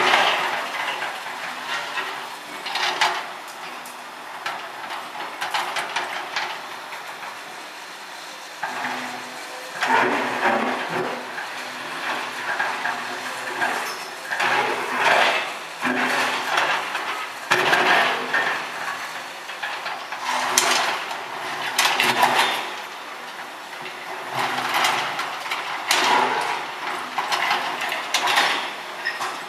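Demolition of a steel-framed structure by a Hyundai hydraulic excavator: sheet metal and steel members clanking, scraping and clattering in repeated bursts every few seconds.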